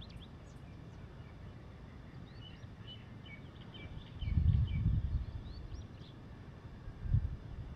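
Faint, scattered chirps of small birds, then low rumbles of wind buffeting the microphone in gusts about four seconds in and again near the end.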